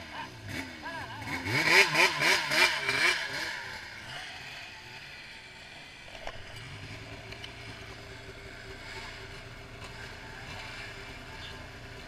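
Two-stroke snowmobile engine revved in a string of quick throttle blips, the pitch rising and falling about twice a second. After about three and a half seconds it settles into steady, quieter running at low revs.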